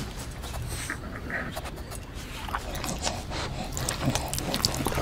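A cartoon pug's panting, short breathy strokes that grow louder toward the end.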